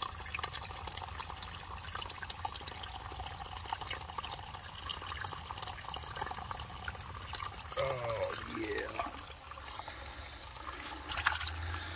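Shallow water trickling through a muddy wash, with small splashes and sloshing as a hand reaches into the water and pulls out a stone. A short murmur from a man's voice about eight seconds in.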